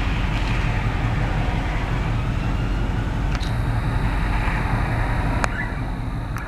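Road traffic rumble: the steady low drone of vehicles and tyres on the street, left behind once the ambulance's siren has passed. A few sharp clicks sound in the second half.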